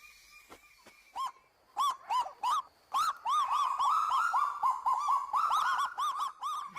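Birds calling: faint steady whistles at first, then about a second in a loud, fast run of short arched notes, each rising and falling in pitch, coming thicker and overlapping toward the end.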